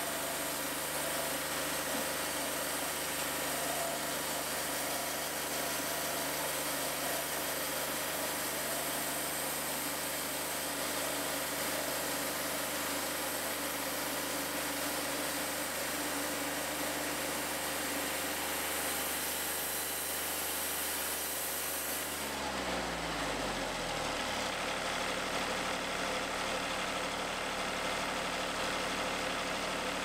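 Wood-Mizer portable band sawmill running steadily under load with the hiss of the band blade cutting through a log. About three-quarters through, the engine winds down to idle, its pitch falling over a couple of seconds as the high cutting hiss stops.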